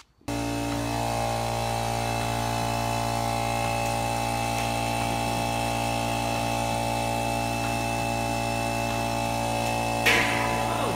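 Electric transfer pump running steadily as mash is pumped through a hose into the still: a constant hum with several fixed tones that starts abruptly just after the start. A short, louder noise comes about ten seconds in.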